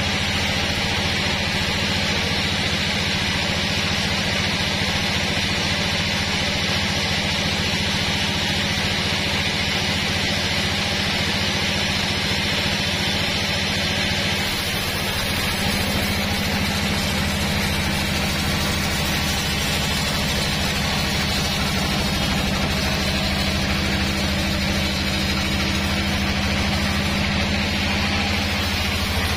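Band sawmill running steadily with its blade sawing lengthwise through a log: a constant low machine hum with a hiss from the cut. About halfway the level dips briefly and the hum shifts slightly in pitch.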